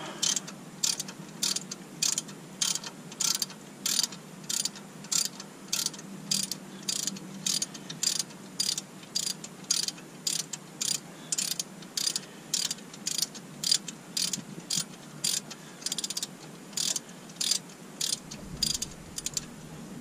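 Hand ratchet worked in short back-and-forth strokes at a car's front wheel, clicking about twice a second as a bolt or screw is turned.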